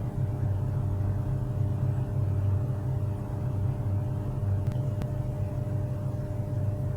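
HP LaserJet 401 laser printer running with a steady low motor drone, and two faint clicks about four and a half and five seconds in.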